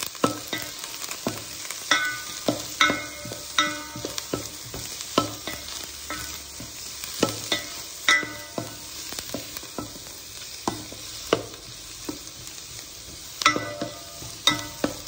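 Vegetables stir-frying in a pan, sizzling quietly, while a utensil stirs them and knocks against the pan at an uneven pace, about once or twice a second; some of the knocks ring briefly.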